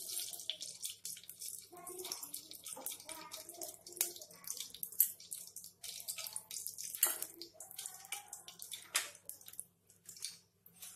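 Oil and ghee heating in the base of a pressure cooker, sizzling with irregular small crackles and spits as the ghee melts into the hot oil.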